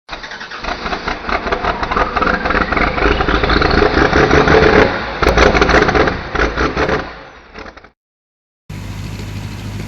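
An engine revving hard, its pitch rising, with a dense rattle; it fades out about eight seconds in. After a short gap a steady low engine hum starts.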